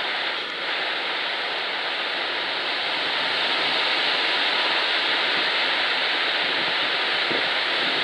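Wind rushing steadily through the leaves and branches of trees, a continuous hiss that swells a little about three seconds in.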